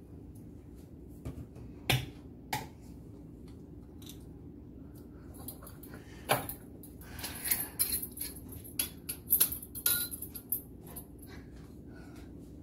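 Olive oil being poured from a metal tin into a glass bottle: a few sharp clinks of the tin's spout against the bottle's mouth, then a quick run of small clinks and spluttering pour noises near the middle.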